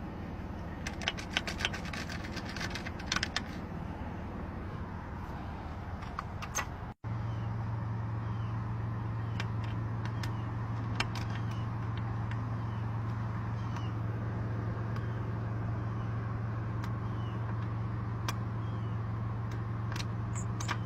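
Vehicle engine idling as a steady low hum, with scattered metallic clicks and rattles of lockout tools working on a car, thickest in the first few seconds. A brief dropout comes about seven seconds in, after which the hum is steadier and louder.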